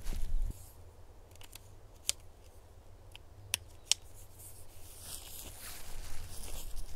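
A brief low rumble at the very start, then a few sharp clicks, the strongest about two, three and a half and four seconds in, and a rustling that builds from about five seconds: small gear and fabric being handled while an ultralight tent is staked out.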